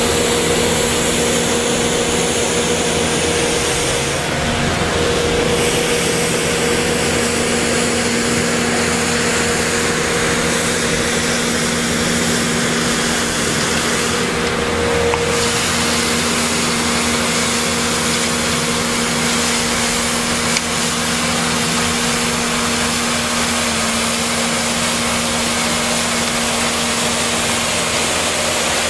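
Bobcat S650 skid steer's diesel engine running steadily with a constant hum, while its hydraulic sweeper broom brushes gravel and sand off the pavement with a steady hiss.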